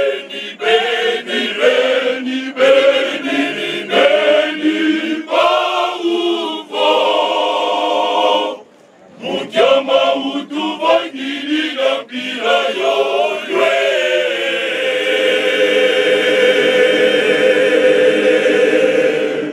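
Male choir singing unaccompanied in short phrases. The song breaks off briefly about halfway, then ends on a long held chord that lasts the last six seconds.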